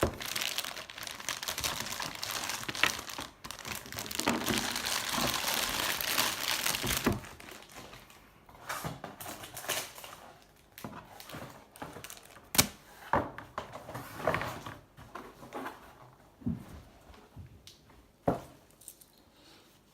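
Packaging crinkling and rustling for about seven seconds as a boxed keyboard is unwrapped, then scattered knocks and taps as the keyboard and box are handled.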